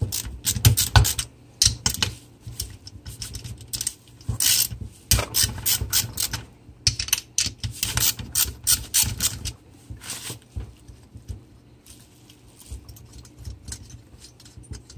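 Irregular metal clicks, taps and rattles as the head nuts are worked loose and the cylinder head is handled on a Zeda 80 two-stroke bicycle engine. The clicking is busiest in the first ten seconds and thins out after that.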